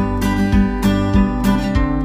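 Background music: an acoustic guitar strummed in a steady rhythm of about three strums a second.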